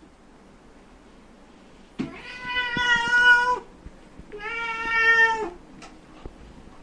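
Domestic cat meowing twice, two long, steady-pitched meows with a short pause between them. This is the cat calling for its food before mealtime.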